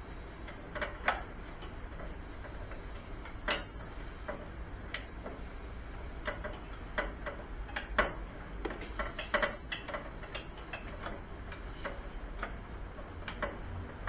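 Ratchet wrench clicking in short, irregular runs as a bolt is worked on the mower engine, with a few louder clicks or knocks of metal on metal, the loudest about three and a half and eight seconds in.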